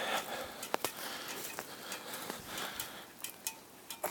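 Campfire crackling: a soft hiss broken by several sharp, separate pops.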